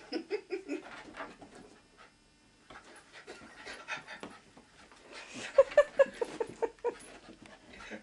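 A dog panting excitedly as it plays, with short whining cries near the start and a quick run of loud, short yelps about three-quarters of the way through.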